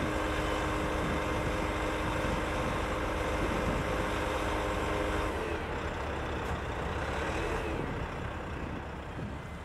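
Truck engine running to power the truck-mounted HAMMAR 195 HB sideloader's hydraulics as its lifting arms are stowed. A steady hum from the machinery stops about halfway through, leaving a lower, more uneven engine sound.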